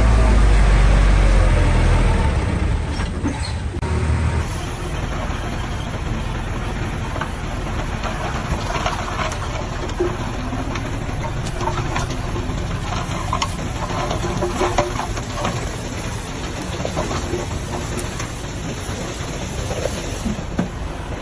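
Heavy diesel earthmoving machinery running: a loud, deep engine hum for the first few seconds, then, after an abrupt change about four seconds in, a steadier, noisier rumble with scattered clanks.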